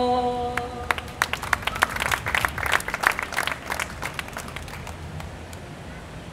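A woman's unaccompanied voice holding the last note of an improvised Basque verse (bertso) for about a second, then a small audience clapping for about three seconds before it dies away.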